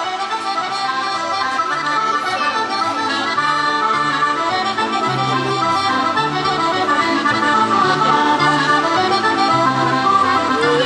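Accordion music: a traditional tune of sustained chords over a bass line that repeats at a regular beat.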